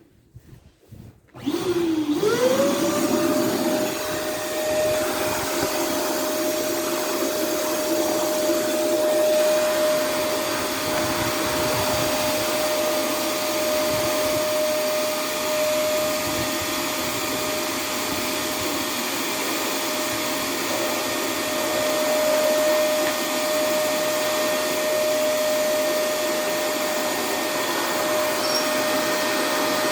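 Electrolux Easybox vacuum cleaner switched on about a second in, its motor winding up to speed with a rising whine, then running steadily with a constant whine and rushing air.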